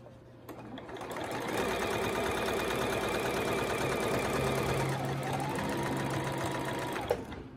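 Electric sewing machine stitching a seam through doubled fabric: a fast, steady needle clatter with a motor whine. It starts about half a second in, builds up over the next second, runs steadily, then stops abruptly near the end.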